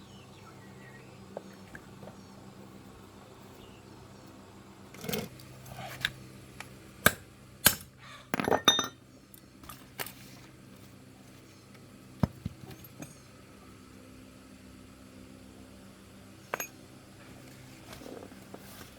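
Metal tools and engine parts clinking and knocking together, in scattered strikes with a cluster in the middle and single knocks later, over a faint steady low hum.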